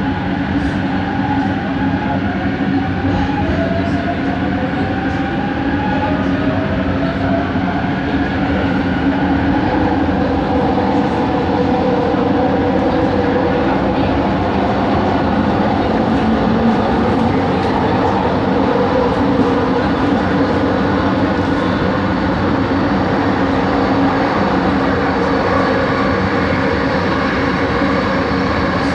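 Kelana Jaya Line Bombardier ART Mark II metro car running, heard from inside. Its linear induction motor gives a whine that rises in pitch over the first several seconds and then holds steady over the continuous running noise of the train.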